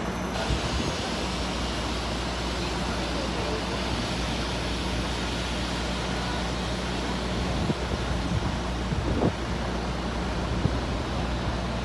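City street traffic noise with a diesel coach bus idling close by: a steady low engine hum under a constant wash of road noise.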